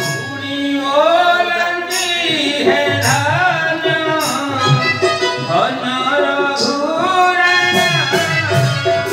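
A solo voice singing an Odia devotional stage song, the melody gliding and bending in ornamented phrases, over instrumental accompaniment with tabla-style drumming.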